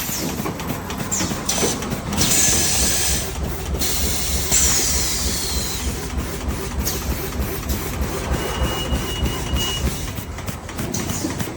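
A four-line high-speed cold-cutting plastic bag-making machine running, with a fast, even mechanical pulsing from its cutting cycle. Two long hisses of air sound about two and five seconds in.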